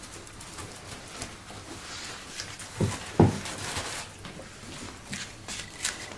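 Griffon puppy scrambling out of its bed and moving across a tiled floor: light ticks and taps of paws and claws on the tiles, with two soft thumps about three seconds in.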